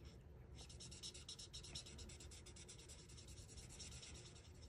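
Stampin' Blends alcohol marker nib scratching faintly across cardstock as it colours, a rapid run of short strokes starting about half a second in.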